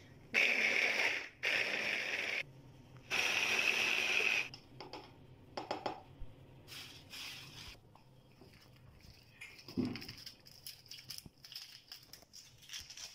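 Hand blender with a chopper bowl, run in three pulses of about a second each, chopping tomatoes to a purée. Then quieter clicks and knocks of handling.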